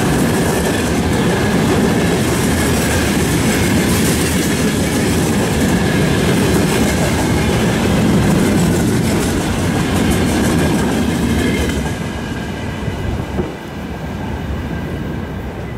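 Freight train of open wagons rolling past at speed: loud rushing noise of steel wheels on the rails with a clickety-clack over the rail joints and a thin high steady ring. About twelve seconds in the last wagons go by and the sound drops and fades as the train moves away.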